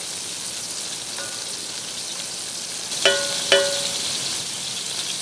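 Whole kernel corn frying in melted butter in a hot pan, a steady sizzle. Two short ringing clinks about three seconds in, one after the other.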